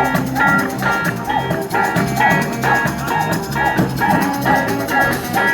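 A street band playing live: a repeated melody of short bright notes, about two a second, over a steady drum beat and bass line.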